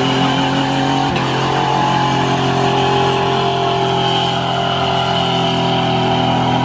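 Full-size pickup truck doing a burnout: its engine is held at high, steady revs while the rear tyres spin on the asphalt.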